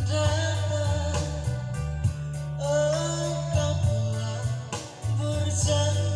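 A man singing a slow pop ballad into a microphone over a Yamaha keyboard's full backing accompaniment, with a bass line and a steady beat.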